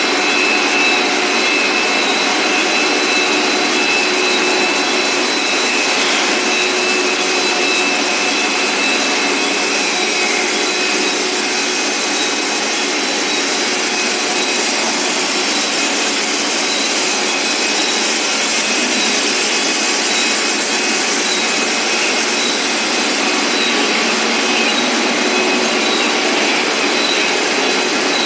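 Cable extrusion line machinery running in a factory hall: a steady, even noise with several thin, steady whining tones over it and no knocks or breaks.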